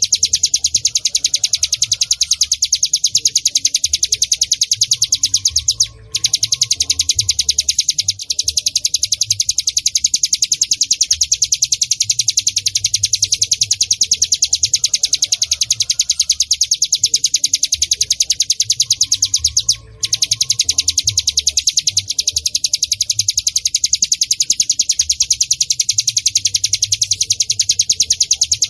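Bar-winged prinia (ciblek gunung) calling: a loud, unbroken string of rapid, evenly repeated high chirps, pausing briefly twice.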